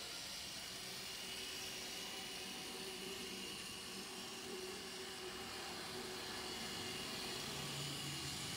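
Z-scale model train running on the track: a faint, steady whirring hiss with a thin motor whine, and a lower hum coming in near the end.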